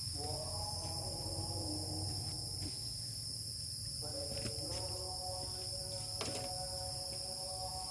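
Crickets and other night insects chirring in a steady, high, unbroken chorus over a low rumble, with a faint droning tone that drops out for about a second midway.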